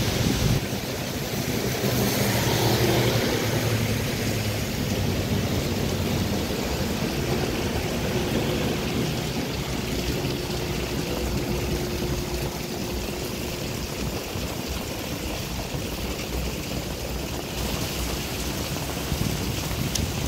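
Steady rain falling on a wet street, with traffic passing on the wet asphalt. A vehicle swells louder about two to four seconds in, and a concrete mixer truck's engine drones by through the middle.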